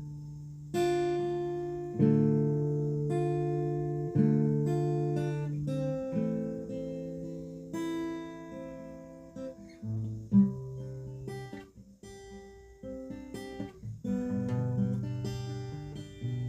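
Acoustic guitar playing a slow instrumental introduction: chords struck every second or two and left to ring out, quieter for a moment near the middle.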